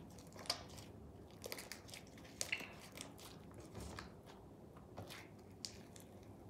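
Fluffy white slime with shaving cream mixed in, being squeezed and stretched by hand. It gives faint sticky crackles and small pops here and there.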